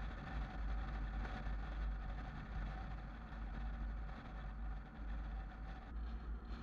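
Car driving along a road: steady road and engine noise with a strong, unsteady low rumble.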